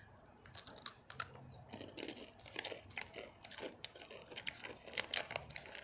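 Takis rolled tortilla chips being crunched and chewed: a run of sharp, irregular crackles starting about half a second in.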